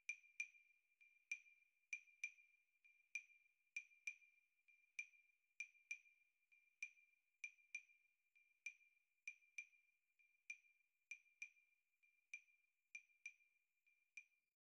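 Near silence with faint, short high clicks, about two dozen of them in an uneven loping rhythm, over a thin, faint high tone.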